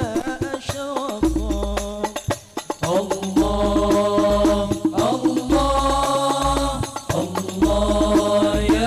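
Al Banjari sholawat group performing through a sound system: a male lead voice sings an ornamented, wavering Arabic devotional melody over quick frame-drum strikes. About three and a half seconds in, the singing settles into long held notes over a deep bass that comes and goes.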